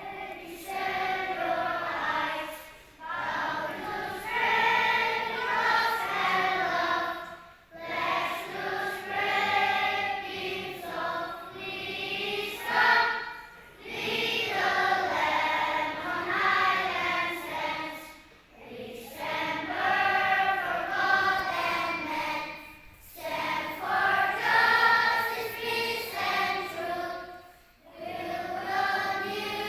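A group of voices singing a song together, in phrases with short pauses for breath every few seconds.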